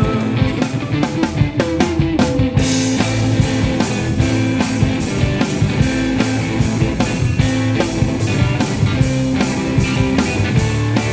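Instrumental rock music: electric guitar over bass and a drum kit keeping a steady beat.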